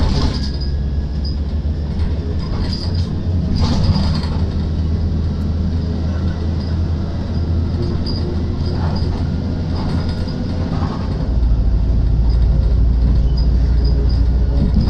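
The interior of a moving MAZ-105 city bus: a steady low diesel engine drone with road noise, and a few knocks and rattles from the body early on. About eleven seconds in, the engine note drops lower and gets louder.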